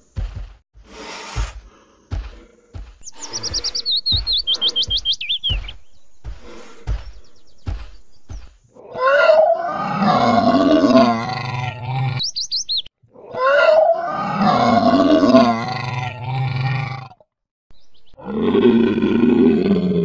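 Recorded dinosaur roars, as played by a toy dinosaur: three long roars in the second half, each gliding in pitch. They follow a run of regular clicks or stomps with a string of quick descending chirps over them.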